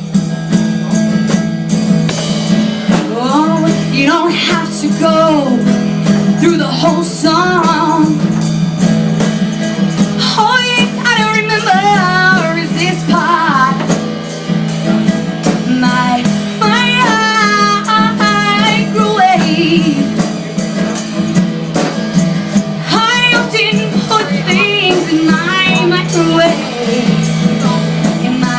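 A song: a sung melody over steady instrumental accompaniment.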